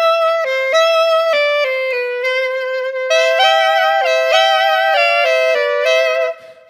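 Intro music: a single melody line played as a run of short stepped notes, breaking off briefly near the end.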